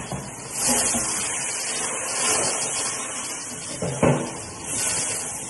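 Kitchen noise during a stovetop pan fire: a steady rushing hiss that swells and fades, with a sharp clatter of cookware about four seconds in.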